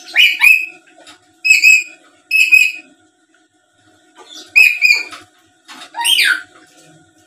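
Black-capped lory giving a series of short, loud, shrill calls, about five in all. The last call slides down in pitch.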